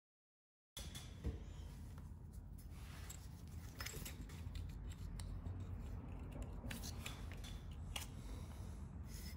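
Fingers rubbing and clicking against the plastic throttle position sensor connector and wiring under the motorcycle's frame while pressing its locking tab, over a low steady rumble. It starts under a second in, with a handful of sharp plastic clicks scattered through.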